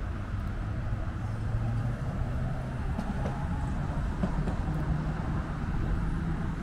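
Heritage tram running, a steady low hum that moves up in pitch around the middle.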